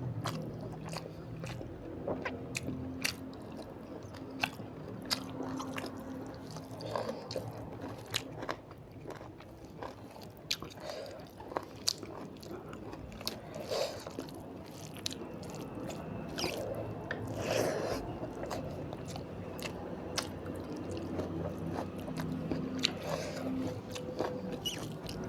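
Close-miked eating sounds: chewing and crunching through an Indian meal of rice, palak paneer and raw onion salad, with frequent sharp mouth clicks.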